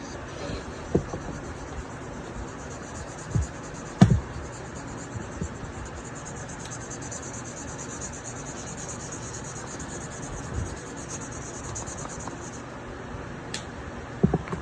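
Pen or brush strokes rubbing on paper while colouring in a drawing, a fine rapid scratching that grows steadier from about five seconds in, with a few soft knocks on the table.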